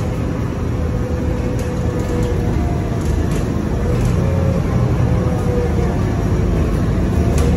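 City feeder bus under way, heard from inside the passenger cabin: a steady low rumble of the bus running, with a faint whine that comes and goes.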